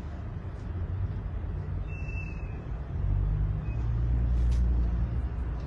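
Low, steady rumble of background noise that swells about three seconds in, with a brief faint whine about two seconds in.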